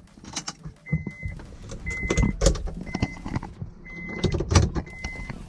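Honda S2000's power soft top motor running as the top is lowered, with two loud knocks from the folding top, the second near the end. A short high beep repeats about once a second.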